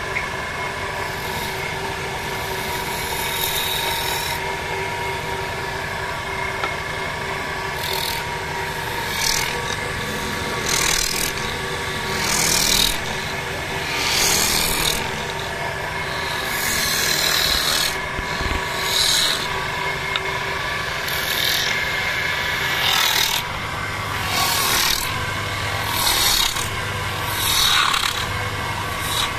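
Wood lathe running with a steady hum while a hand-held turning chisel cuts a spinning mahogany blank. From about eight seconds in come repeated hissing scrapes, each about a second long, one every second or two.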